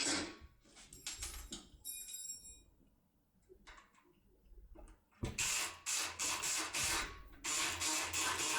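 Handling clicks and a brief metallic ring. Then, from about five seconds in, the Multipick Kronos electric pick gun buzzes as its needle rapidly strikes the pins inside a lock cylinder, with a short break partway through.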